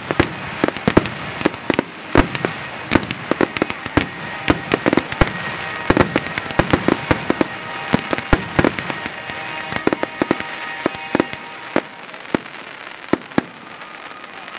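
Aerial fireworks shells bursting in a rapid barrage, several sharp bangs a second over continuous crackle, thinning out to a few scattered bangs after about eleven seconds.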